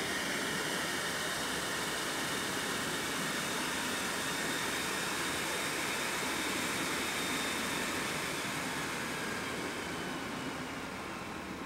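Centrifugal computer blower fan driven by a brushless hard-drive spindle motor on a three-phase driver, running steadily: a smooth rush of air with a faint high whine. It gets a little quieter near the end, its whine sinking slightly in pitch.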